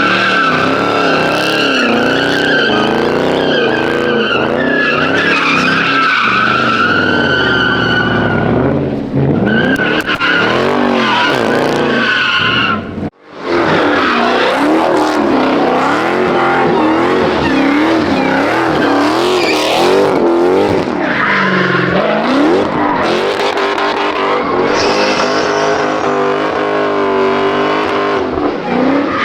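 V8 muscle car doing burnouts and donuts: tyres squealing in a high, steady screech while the engine revs rise and fall in quick waves. The sound breaks off suddenly for a moment about 13 seconds in, then picks up again.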